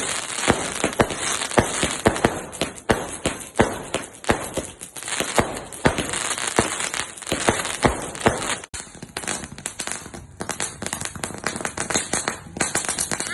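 Fireworks going off in rapid, irregular succession: a dense string of bangs and crackles, several a second, with a brief lull about two thirds of the way in.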